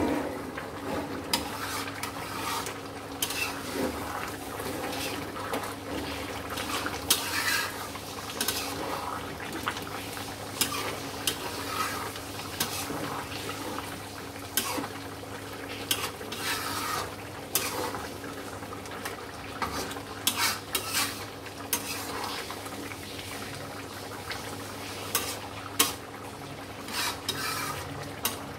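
Metal spoon and flat metal spatula stirring a simmering fish curry in a metal karahi, with irregular scrapes and clinks against the pan. A steady low hum runs underneath.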